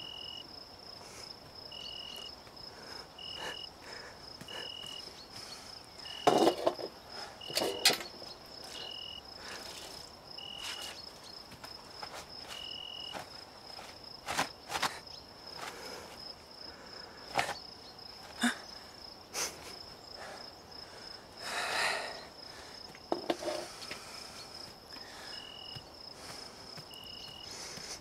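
Crickets chirping: a steady high trill with a shorter chirp repeating about every second and a half. A few sharp knocks and a brief rustle come in over it, the loudest about six to eight seconds in.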